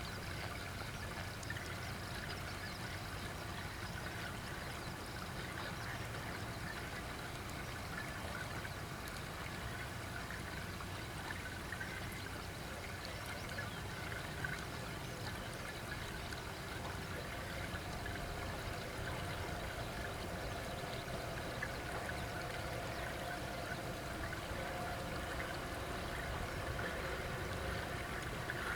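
Steady rush of flowing water, with no passing train.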